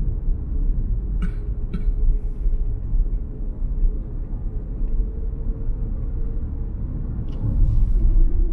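Road and tyre noise heard from inside a car's cabin at highway speed: a steady low rumble with a faint drone, broken by two short clicks about a second in and a brief rise in hiss near the end.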